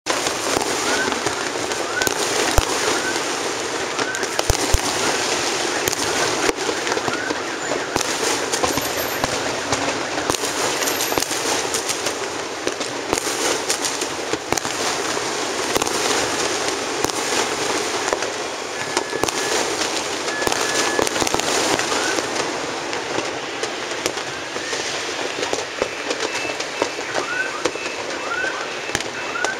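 Fireworks and firecrackers going off across a city: a dense, continuous crackle of many small bangs, with a couple of louder reports in the first few seconds.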